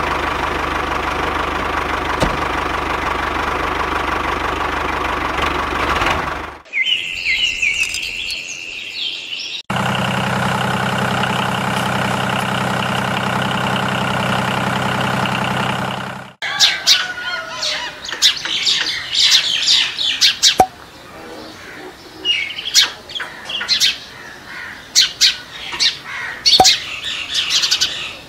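A steady machine-like drone for about six seconds, a few seconds of bird chirping, then another steady drone with an even hum for about six seconds. After that, birds chirp, with many sharp clicks and taps scattered through.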